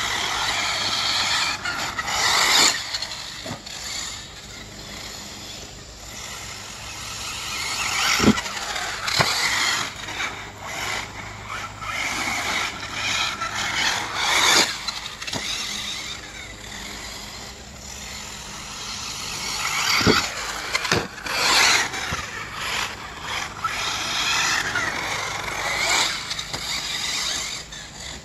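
Mugen MBX7R 1/8-scale RC buggy driving hard, its motor note rising and falling with the throttle as it comes near and goes away. A few sharp knocks stand out as the loudest moments.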